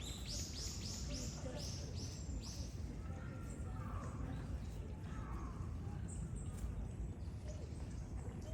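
A bird calls a quick run of about eight high notes, a few each second, in the first few seconds, with fainter calls after. A steady low rumble of outdoor background noise runs underneath.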